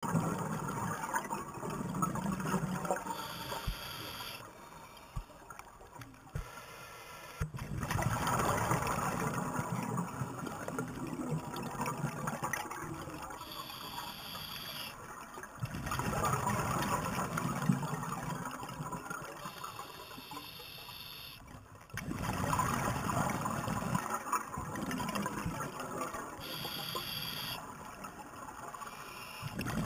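Scuba diver breathing through a regulator, heard underwater: bubbling exhalations lasting a few seconds each, coming back about every six to seven seconds, with short thin hisses of inhalation between them.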